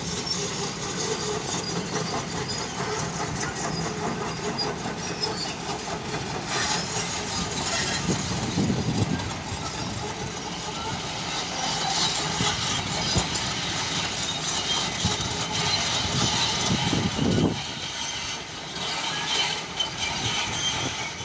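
Heavy diesel engine machinery running hard, with a steady mechanical noise that swells lower and louder twice, about eight seconds in and again near seventeen seconds.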